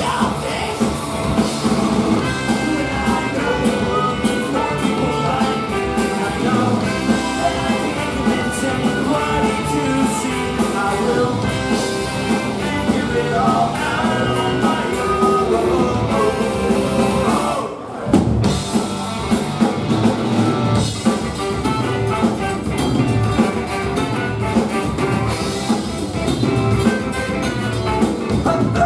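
Live ska band playing: electric guitars, bass, drum kit and a horn section of saxophones and trombone, with sung vocals. The whole band stops for a split second a little past halfway, then comes straight back in.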